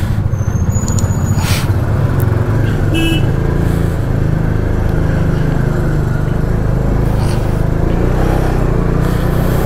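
Bajaj Dominar 400's single-cylinder engine running steadily at low speed through narrow lanes, close up from the rider's seat, with other motorcycles riding just ahead.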